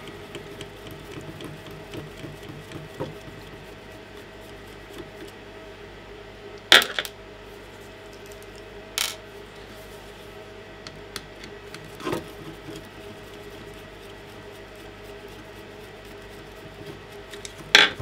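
Sporadic sharp clicks and small clatters of a screwdriver, screws and plastic parts being handled while the vacuum's battery and electronics pack is unscrewed, spaced seconds apart, the loudest about a third of the way in and at the end. A steady faint hum underneath.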